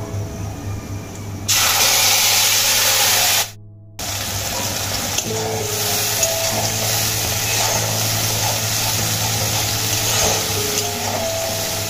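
Wet spice paste of ginger, fennel and green chillies hitting hot oil in a kadai: a sudden loud sizzle about a second and a half in, a brief drop-out, then steady sizzling as the paste is stirred.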